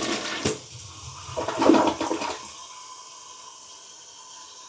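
Newly installed toilet flushing: a loud rush of water that peaks under two seconds in, then dies down about two and a half seconds in to a quieter steady hiss.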